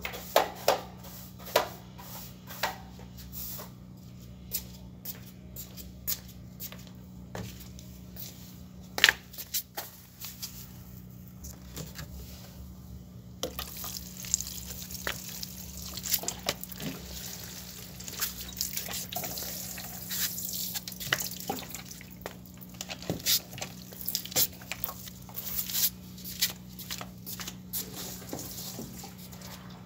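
Water pouring and splashing from a plastic watering can onto potted plants and a hard terrace floor, with drips. The first half holds mostly scattered clicks and knocks; about halfway in, a continuous splashing of poured water sets in.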